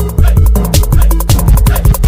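Loud electronic background music with heavy bass and a fast drum beat.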